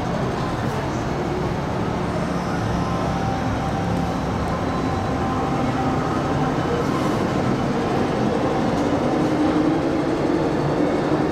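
MTR Island Line M-Train running on the line, a steady rumble of the moving train that grows slowly louder.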